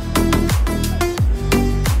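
Electronic background music with a steady kick-drum beat and held synth chords.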